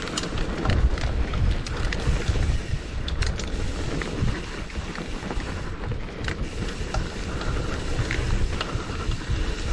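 Wind buffeting the microphone on a mountain bike descending a downhill trail, with the bike and tyres clattering over rough ground in scattered sharp knocks and rattles.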